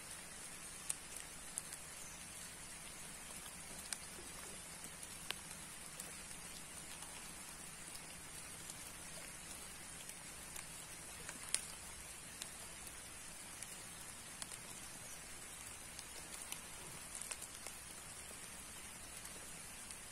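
Light rain falling: a faint, steady hiss with scattered ticks of single drops.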